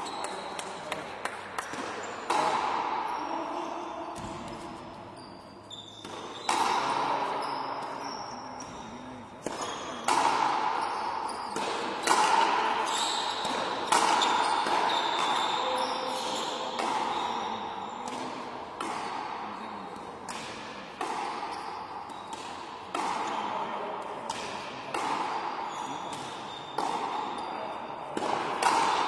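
Frontenis rally: rackets striking the rubber ball and the ball smacking off the front wall and floor, sharp hits roughly every one to two seconds, each ringing out in the hall's long echo.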